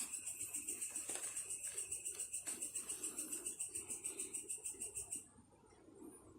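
A high-pitched insect trill of rapid, even pulses, about ten a second, that stops abruptly about five seconds in. A few light clicks sound through it.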